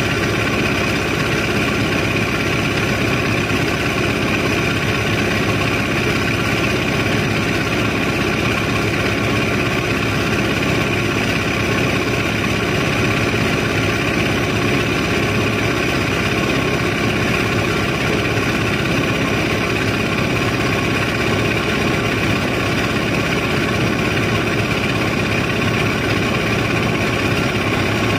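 Steady, unchanging drone of a barge's onboard engine machinery running during sand unloading, with several steady tones over it.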